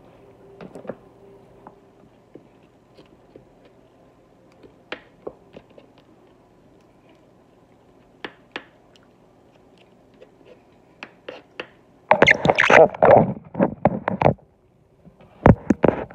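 Rotisserie chicken being pulled apart by hand: scattered soft clicks and tearing, then a loud crackling rustle for about two seconds about three-quarters of the way through, and another short one near the end.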